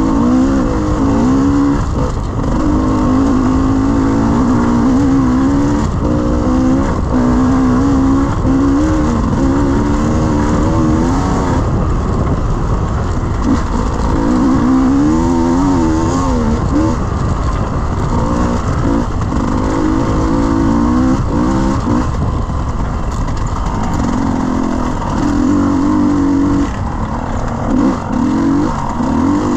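Enduro dirt bike engine running under load on a slippery trail, revs constantly rising and falling as the throttle is worked, easing off briefly near the end.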